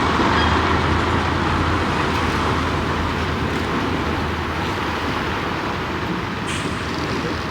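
A heavy road vehicle driving slowly past: a steady low engine hum under tyre and road noise, loudest at the start and slowly fading.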